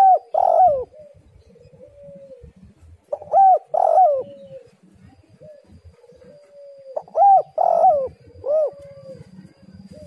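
Spotted dove cooing: three phrases of several short notes each, one every three to four seconds, each note rising and then falling in pitch.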